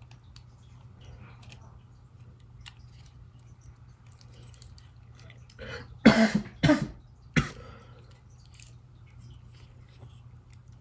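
A person coughs three times in quick succession about six seconds in, over faint scattered clicks and a steady low hum.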